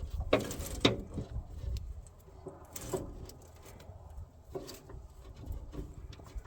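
Scattered clicks and knocks of hand work on a bolted cable connection: cable lugs and a ground wire being fitted onto a terminal stud and a wrench worked on the nut. A few sharper knocks come in the first second, then single ones about three seconds and about four and a half seconds in.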